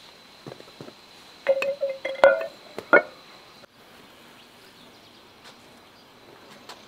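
A heavy rounded stone set down and shifted on stone slabs: a cluster of loud stone-on-stone knocks and short gritty scrapes, some with a squeal, from about a second and a half in, with a few light clicks around them.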